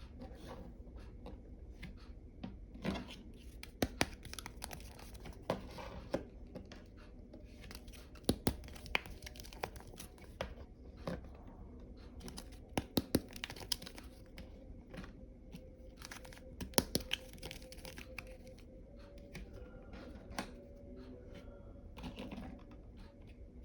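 Plastic wrapping crinkling and tearing as small toys are unwrapped, with scattered sharp clicks and taps of small plastic pieces being handled.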